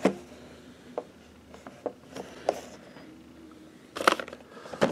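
Cardboard and plastic-window boxes of action figures being handled: a few light clicks and taps, then a louder clatter of knocks and scraping about four seconds in as a box is moved and set down.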